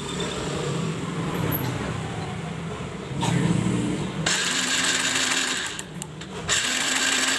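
Yamaha Vega R New's single-cylinder engine spun over on its starter with the spark plug out and grounded against the cylinder head for a spark test. The cranking comes as two steady whirring bursts, the first about halfway through and the second near the end.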